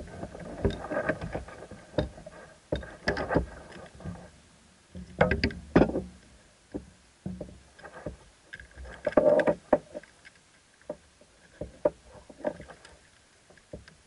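Irregular knocks, clicks and rustles close to the microphone from a caught bass and fishing gear being handled on a kayak, with louder clusters of knocking a few times. Toward the end the angler is working the lure out of the fish's mouth.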